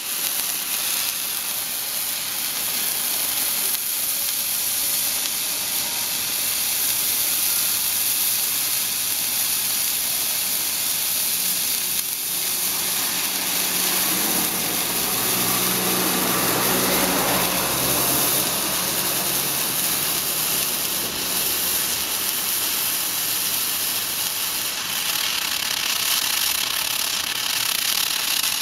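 A firework burning and spraying sparks with a steady, loud hiss that doesn't let up, swelling fuller and lower for a few seconds around the middle.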